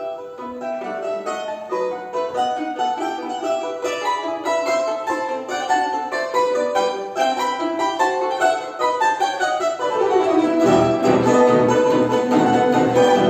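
Instrumental music: a quick melody of plucked-string notes, joined about ten seconds in by a fuller, rhythmic low accompaniment that makes it louder.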